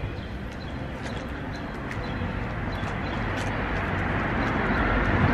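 Street traffic noise growing steadily louder, with a few faint clicks.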